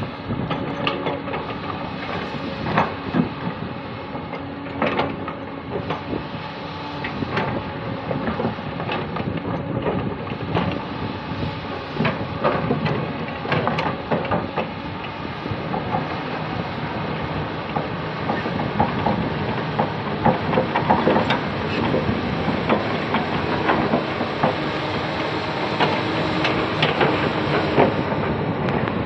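Komatsu PC200 hydraulic excavator's diesel engine running steadily under load, with many irregular metallic clanks and knocks from the working machine.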